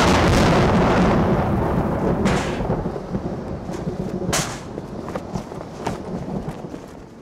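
A loud thunderclap breaks in at once and rumbles away over a couple of seconds into steady rain. Sharper cracks come about two and about four seconds in.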